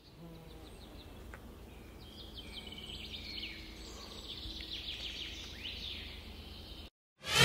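Woodland birds chirping and singing, many short calls and quick sweeps, over a low steady outdoor rumble. The sound cuts off suddenly near the end, and a loud swoosh starts right after.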